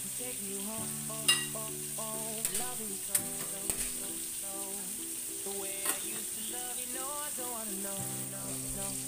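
Blue marlin steaks sizzling steadily in a frying pan, with a few sharp clinks of cookware, over background music.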